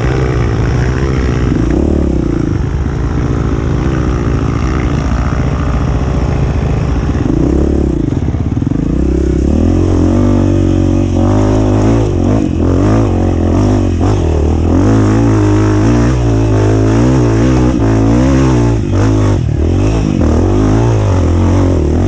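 Off-road dirt bike engine revving hard, its pitch rising and falling again and again with the throttle, growing louder about eight seconds in.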